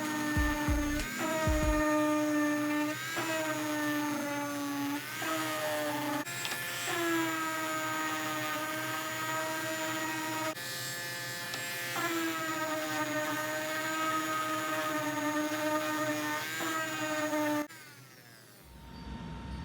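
An electric woodworking power tool's motor running with a steady high-pitched whine, heard in a string of short runs of a few seconds each that break off abruptly, the pitch sagging slightly now and then. The whine stops near the end.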